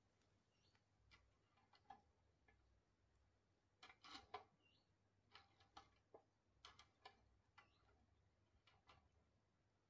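Faint, scattered light clicks and taps of metal tongs against a brazier's grill grate while pork steaks are laid out and turned, coming in little bunches every second or so. Otherwise near silence.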